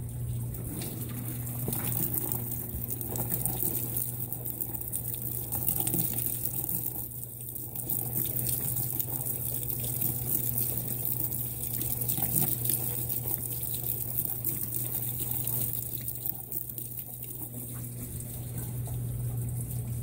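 Water pouring and splashing into the basket of a top-load washing machine as it fills, over a steady low electric hum from a washer's motor or pump.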